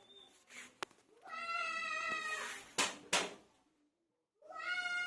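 A cat meowing: two long, drawn-out meows about three seconds apart, with two sharp clicks between them.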